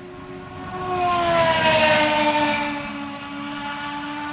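Champ Car open-wheel race car with a turbocharged V8 passing by at speed: its high engine note swells to a peak about a second and a half in, drops in pitch as it goes past, and recedes.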